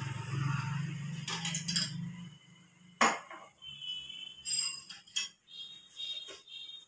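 Small metal puja vessels being handled: a sharp clink about three seconds in, then several lighter knocks and two short ringing tones as the pieces touch. A low hum fades out in the first two seconds.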